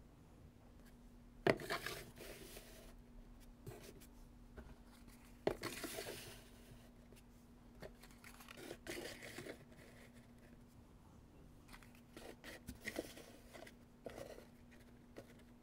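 Boxes being lifted one by one off a stacked pyramid and set down: a sharp knock about one and a half seconds in and another at about five and a half, each followed by a scraping, rustling slide, then softer taps and scrapes. A faint steady hum runs underneath.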